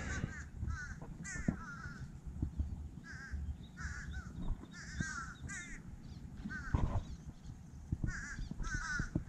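Birds calling repeatedly with short, arched, caw-like notes, often in pairs, every second or so.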